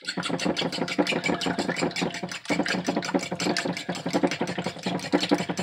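Fork beating raw eggs in a mixing bowl: rapid, steady clicking of the tines against the bowl, with a brief pause about halfway through.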